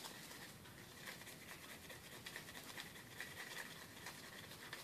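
Faint, quick scratchy scrubbing on a water-damaged Samsung Galaxy S4's parts as corrosion and moisture are cleaned out.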